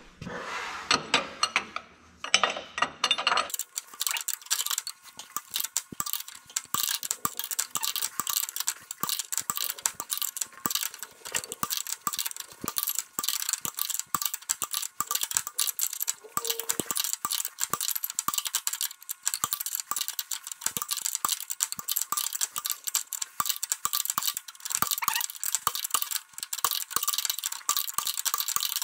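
Wrench turning a cross-threaded compression fitting on a Ford 3000 tractor's hydraulic pressure line, heard sped up six times: a fast, dense stream of small metallic clicks and clinks from about three and a half seconds in, after a short stretch of slower tool handling.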